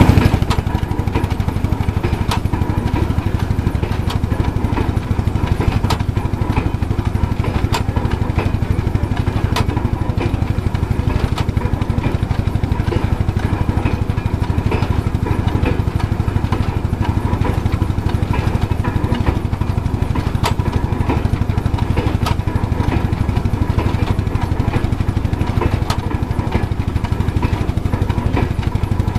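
Vintage belt-driven threshing machine running steadily while sheaves of grain are fed into it: a dense mechanical din with a fast, even pulse underneath and a few sharp clicks.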